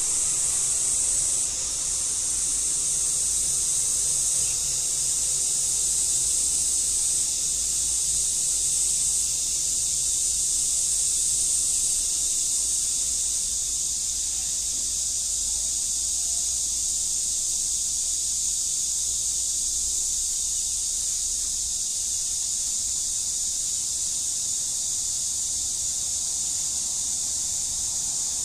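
A steady, high-pitched insect chorus shrilling without a break, with a faint low rumble underneath.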